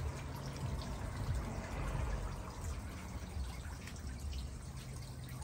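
Garden pond fountain splashing and trickling steadily, with a steady low hum underneath.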